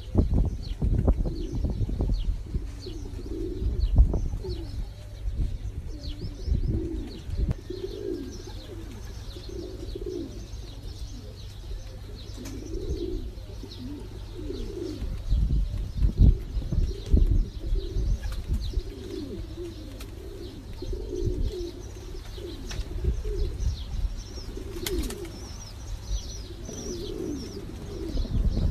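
Domestic pigeons cooing over and over, short low rolling calls one after another. Faint high chirps sit above them, and low thuds and rumble come a few seconds in and again about halfway.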